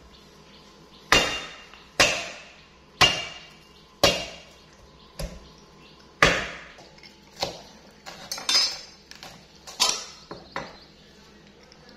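Kitchen knife chopping on a round wooden cutting board: about ten heavy single strikes, roughly one a second, each ringing briefly.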